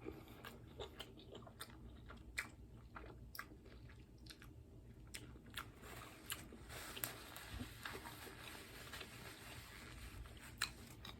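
Close-miked chewing of a taco: faint, irregular wet mouth clicks and smacks, with a few sharper clicks.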